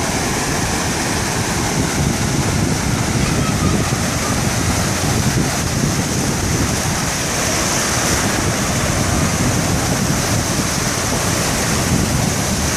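Sea waves and surf with wind buffeting the microphone: a steady, unbroken rushing noise.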